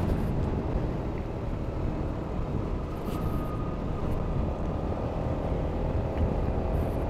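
Honda Forza 250 (MF17) scooter riding at a steady speed: its single-cylinder engine running evenly under a steady rumble of wind and road noise.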